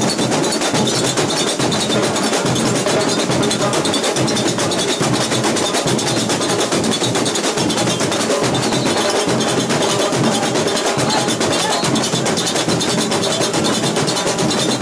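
Samba school bateria playing a samba: surdo bass drums, tamborims and other drums in a dense, steady groove of fast strokes, heard close up from inside the drum section.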